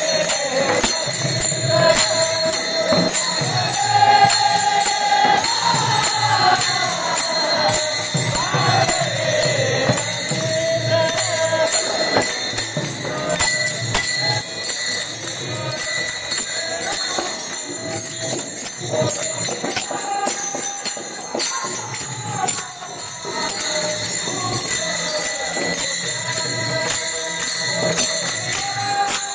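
A bhajan sung in unison by a group of men, accompanied by many pairs of small brass hand cymbals (taal) clashing in a steady rhythm and a two-headed barrel drum (pakhawaj).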